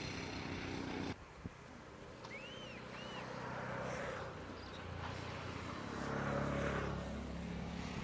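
Outdoor ambience: a bird chirps twice a little after two seconds in, over a low engine hum that grows louder in the second half.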